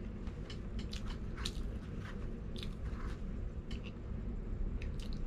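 A person chewing and biting crispy fried chicken, with irregular short crunchy clicks from the breading scattered throughout.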